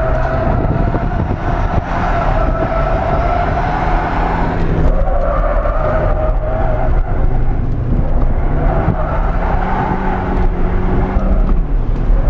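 Nissan 200SX S13's turbocharged CA18DET four-cylinder engine running under throttle, heard from inside the cabin, its pitch shifting up and down. Over it the tyres squeal in three long wavering stretches as the car slides sideways in a drift.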